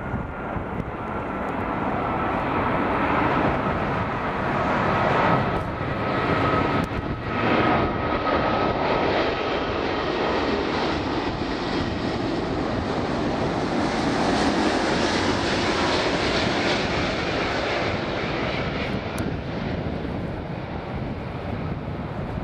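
Airbus A380 on final approach with gear down: the steady jet noise of its four Rolls-Royce Trent 900 turbofans at approach power. A thin high fan whine slowly falls in pitch over the first several seconds, and the noise swells and then holds as the airliner passes low overhead.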